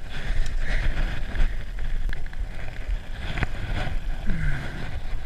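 Wind buffeting the microphone with a steady low rumble, broken by a few sharp clicks and knocks as the fish and landing net are handled in a small aluminium boat.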